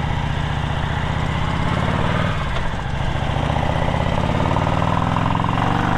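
Harley-Davidson V-twin motorcycle engine running under way, a steady engine note that dips a little past two seconds in and then slowly climbs again.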